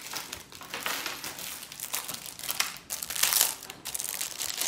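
Plastic packaging crinkling and rustling as it is handled while a piece of jewelry is unpacked, loudest a little past three seconds in.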